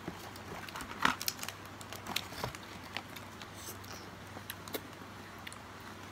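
Scattered soft crinkles and clicks of plastic ice cream packaging being handled, over a faint steady low hum.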